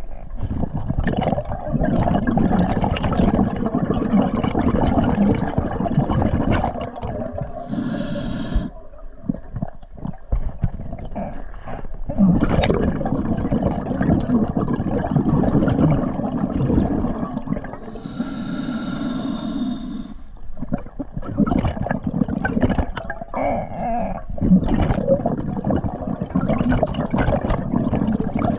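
A scuba diver breathing through a regulator underwater: two short hissing inhalations through the second stage, between long stretches of exhaled bubbles gurgling and rumbling close to the microphone.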